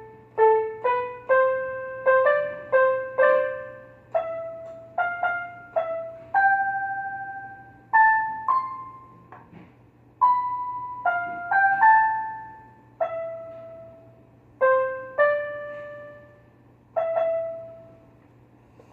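A simple piano-like melody of single notes, each struck and fading away, played quickly at first and then more slowly and sparsely, over a steady low hum.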